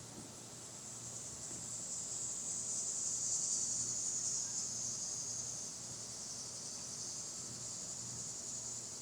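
Insect buzzing, a high, even hiss that swells up over the first few seconds and then slowly fades back.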